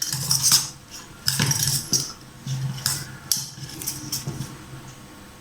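Clinking and scraping of a utensil against a bowl as a chopped raw onion and spice filling for samosas is mixed. The strokes come quickly at first and thin out near the end.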